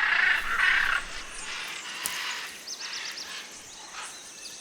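Scarlet macaws squawking harshly at each other in a squabble, with the loudest squawks in the first second and shorter, weaker ones after. A quick run of about five high chirps comes near the middle.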